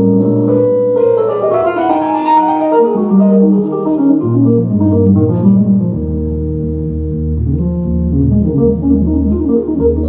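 Solo electric organ played live on a Korg stage keyboard. Held chords give way about a second in to a quick cascade of notes running up and down. Low bass notes then come in under rippling, repeating chords.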